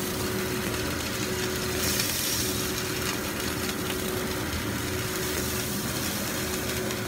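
Kitchen range hood fan running with a steady hum and whoosh, with a brief louder hiss about two seconds in.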